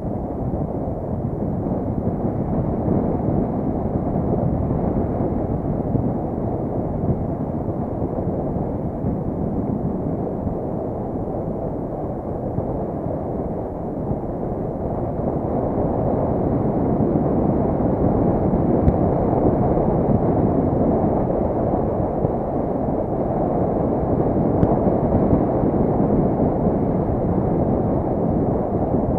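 Steady, muffled rush of wind on an action camera's microphone, mixed with the rumble of bicycle tyres rolling fast on the concrete bobsleigh track during a downhill ride.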